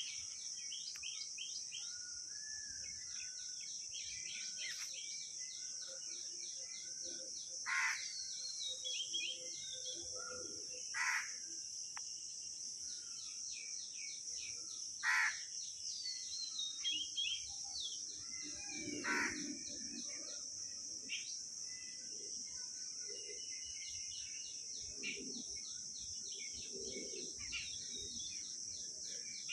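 Birds calling over a steady high-pitched hiss, with many small chirps and a loud harsh call every few seconds, about five in all.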